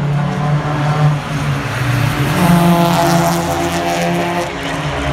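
Two street cars accelerating hard down a drag strip, their engines running at high revs. The engine note steps up in pitch and grows loudest a little past the middle.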